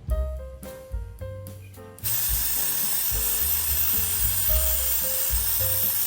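Background music with a steady drum and bass beat. About two seconds in, a loud, steady hiss starts over the music and lasts about four seconds.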